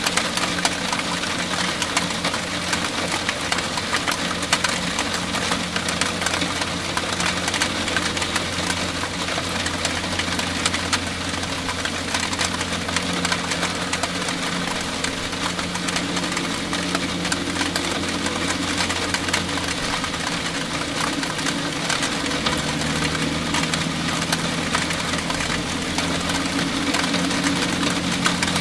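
Heavy rain shower, a dense steady hiss of countless small drop ticks, over a steady low hum that shifts in pitch about twenty seconds in.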